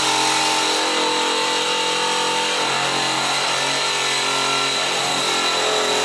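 Milwaukee M18 Hackzall cordless one-handed reciprocating saw running at a steady speed, its blade cutting into a screw driven into a wooden board. The motor holds one even pitch without bogging down.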